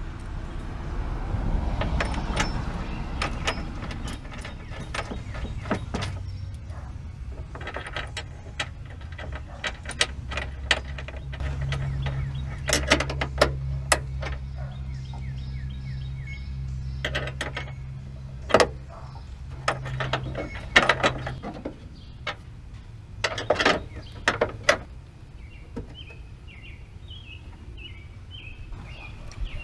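Scattered metal clinks and knocks of parts and hardware being handled and fitted in a pickup truck's engine bay. A low steady hum runs through the middle, and faint bird chirps come in near the end.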